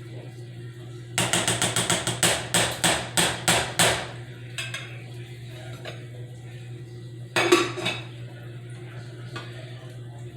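A serving spoon rapping against a dish while food is dished up: a quick run of about a dozen sharp knocks, then a shorter clatter about three quarters of the way in.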